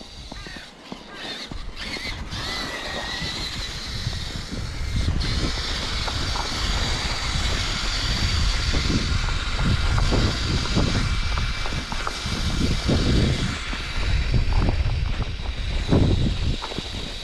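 Electric motor and gears of a radio-controlled truck whining steadily as it drives, over low, uneven rumbling that grows louder after the first few seconds.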